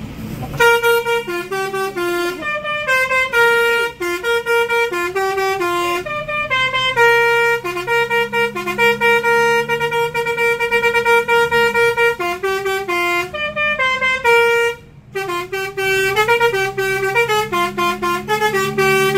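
Bus's multi-tone 'basuri' musical air horn playing a tune, its notes jumping quickly between a few pitches, with a brief break about fifteen seconds in.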